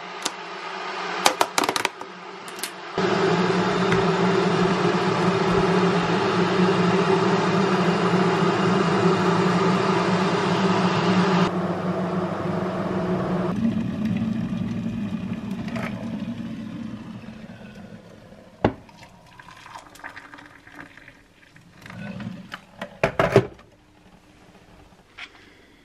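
A few clicks as a plastic food container is handled, then a microwave oven running with a steady hum and fan noise for about ten seconds before it fades away. Near the end come scattered knocks and clinks of crockery.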